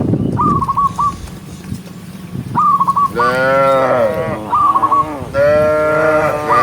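Cattle mooing: two long, drawn-out moos, one starting about three seconds in and another about five seconds in. A short high chirping call repeats several times between them.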